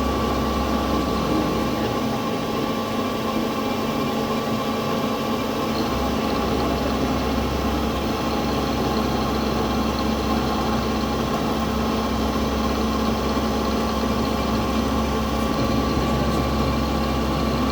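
CNC milling machine running steadily through a contour-milling operation: a constant machine hum with several steady whining tones over it.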